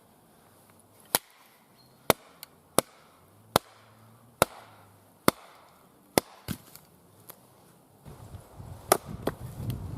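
Wetterlings Hudson Bay axe chopping and splitting wood on a chopping log: a series of sharp knocks, about one a second. A rougher low rustling noise sets in near the end.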